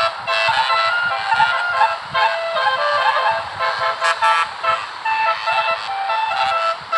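Basuri musical bus horn (a 'telolet' horn) playing a tune: a run of short horn notes stepping up and down in pitch, one after another without a break.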